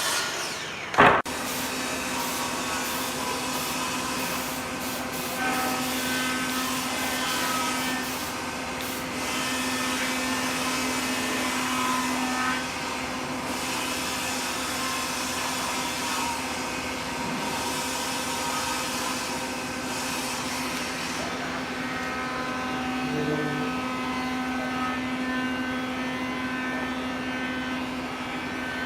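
Electric power tool motor running steadily at one even pitch, with a sharp knock about a second in.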